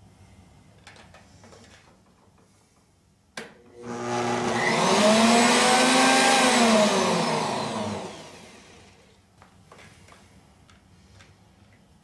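Electric wood chipper motor switched on with a click, spinning up to speed with a loud whirr, running a couple of seconds, then winding down to a stop. Faint handling clicks before and after.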